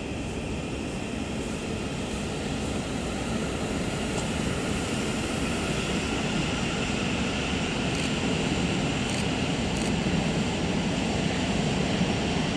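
South Western Railway electric multiple unit moving slowly through the station: steady running noise with a faint electric motor whine, growing gradually louder, with a few light clicks near the end.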